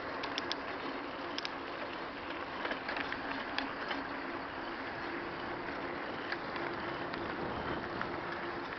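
Steady rushing of wind and tyre noise from moving fast downhill on asphalt alongside a child's bicycle. Scattered light clicks and rattles come in the first four seconds, and a faint steady hum runs through the second half.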